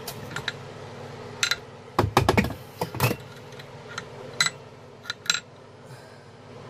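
Metal engine parts and tools being handled: a series of sharp clinks and knocks, a quick cluster of them about two seconds in and single taps after, over a steady low hum.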